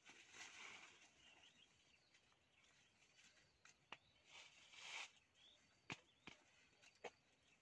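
Near silence: faint rustling of dry leaf litter and a few light clicks as a baby macaque handles a cloth cap on the ground, with faint bird chirps.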